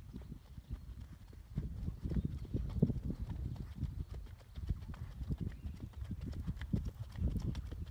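Horse's hooves beating on a dirt riding track in a quick run of thuds, louder from about a second and a half in.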